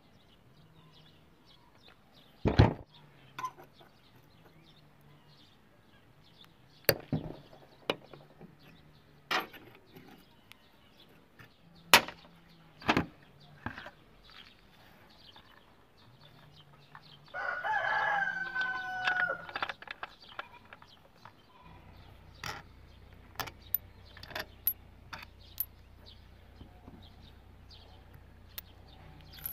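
Metal tools knocking and clinking against a scooter engine's casing during disassembly: a dozen or so sharp single strikes at uneven intervals. A little past the middle, a rooster crows once for about two and a half seconds.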